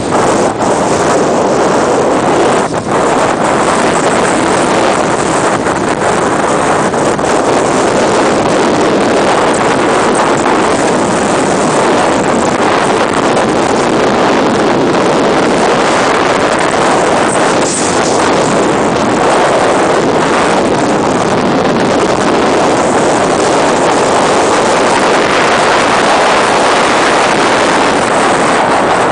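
Motorcycle riding at road speed: steady, loud wind rush over the microphone, with the motorcycle's engine running underneath.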